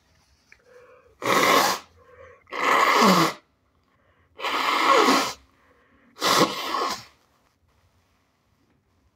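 A person with sinusitis forcing air out hard through a congested nose four times, each burst about a second long with a falling pitch, with short quiet breaths in between.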